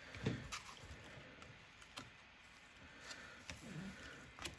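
Faint, scattered clicks and taps of small tools and parts being handled on an iPad under repair, a handful of separate ticks spread over a few seconds.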